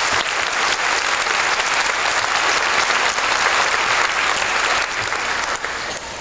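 Audience applauding, the clapping fading near the end.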